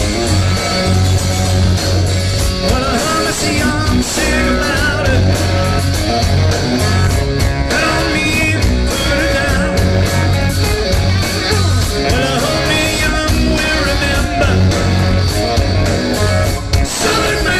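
Live rock band playing loudly: two electric guitars, bass guitar and drums, with a singer's voice over them for part of the time.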